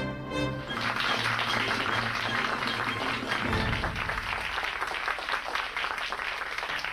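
The last notes of orchestral theme music, then audience applause that starts about a second in and carries on steadily.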